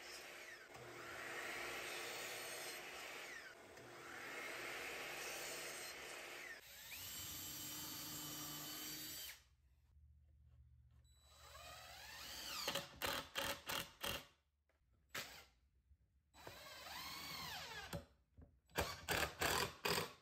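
A sliding miter saw cutting treated 2x lumber, about three cuts in the first nine seconds. Then a cordless drill runs in short bursts, driving into a wooden frame, its whine rising and falling, with a quick run of sharp clicks a little past halfway and again near the end.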